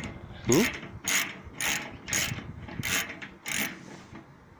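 Ratchet wrench clicking in repeated short strokes, roughly two a second with pauses, as bolts are tightened into a washing machine's spider arm.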